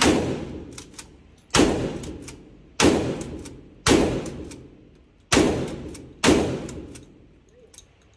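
Single gunshots fired one at a time, six shots about one to one and a half seconds apart, each sharp crack trailing off in a long echo.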